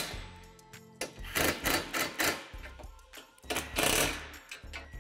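Cordless drill spinning a socket in several short bursts, tightening bolts and nuts on a metal shed truss. Background music plays underneath.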